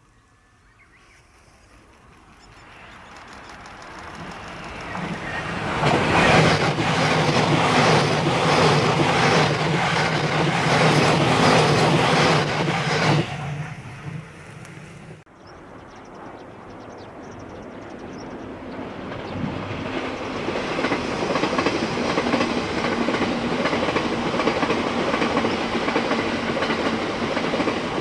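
Two electric trains passing at speed, their wheels clacking rhythmically over the rail joints under a steady low hum. The first grows loud, passes and fades; after a sudden cut about fifteen seconds in, an E353 series limited express approaches and runs past, loud again by the end.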